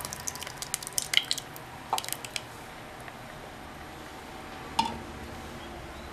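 Thick curd pouring from a steel tumbler into a steel cooking pot: a quick run of small wet plops and clicks over the first second and a half, a few more about two seconds in, then a single light metal knock near the end.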